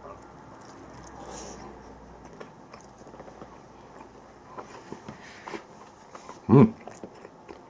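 Eating at a table: quiet chewing with small clicks and rustles, and a paper bowl of canned mackerel set down on the table. About six and a half seconds in comes one short, loud, voice-like 'mm'.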